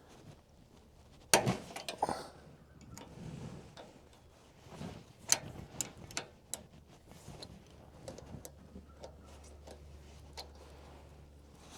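Irregular metallic clicks, taps and clinks of hand work on a small engine's carburetor fuel bowl, with a louder clunk about a second in and another near the middle. A faint low steady hum comes in during the last few seconds.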